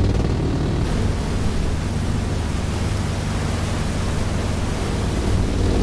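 A fishing boat running at speed: a steady rush of wind and churning wake over a constant low engine drone.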